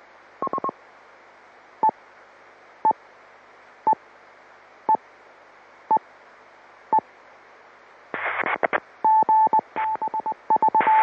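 FM radio repeater channel hissing, with a short beep just under 1 kHz about once a second. From about 8 seconds in, the channel is keyed on and off in rapid bursts of noise, low hum and the same beep tone, with no speech.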